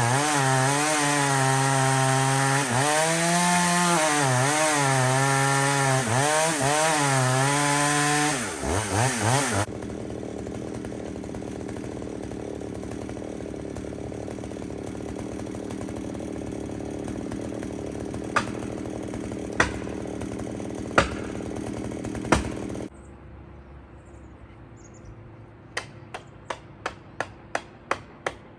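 Chainsaw cutting into a tree trunk under load, its engine pitch wavering for about eight seconds, then dropping back to a steady idle broken by a few sharp knocks. The engine stops about two-thirds of the way through, and near the end comes a run of sharp blows against the tree, about three a second, growing louder.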